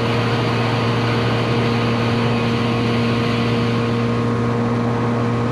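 Benelli 302S parallel-twin engine running at a steady speed while the bike cruises, its note holding level, with a steady rush of wind and road noise.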